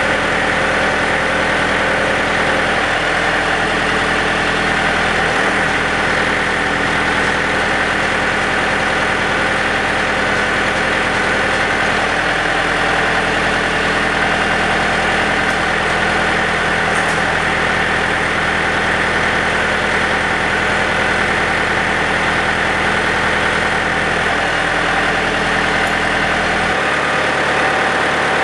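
Yanmar EF342J tractor's diesel engine running steadily, with the PTO-driven rotary tiller turning at the start. Near the end the deep low hum drops away and the running note changes.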